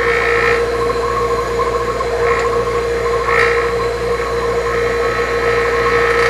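HVAC vacuum pump running steadily with a constant hum, drawing a vacuum through the manifold gauges and jar to suck brake fluid out of the opened caliper bleeder screw. There are a few brief louder surges of higher sound over the hum.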